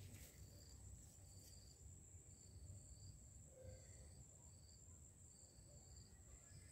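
Faint insects calling: a steady high buzz with short high chirps repeating about once a second, over quiet low rumble.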